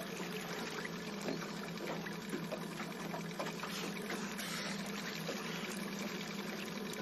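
Water lapping and splashing against the side of a small boat, with a few faint short splashes, over a steady low hum.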